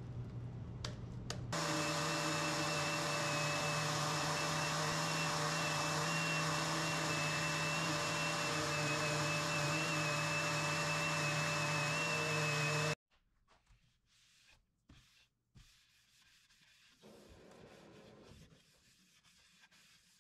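DeWalt random orbit sander running steadily on an end-grain hardwood cutting board, a steady high whine over the sanding noise. It starts about a second and a half in and cuts off sharply past the middle, leaving only faint rubbing sounds.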